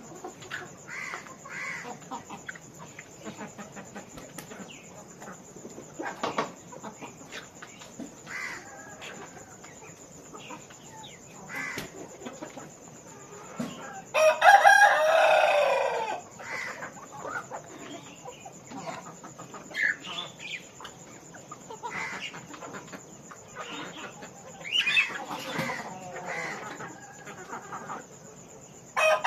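Farm chickens clucking continuously, with a rooster crowing loudly about halfway through and again more faintly near the end.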